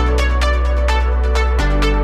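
Electronic dance music with a fast, steady beat and a held bass line that shifts to a new note about a second and a half in.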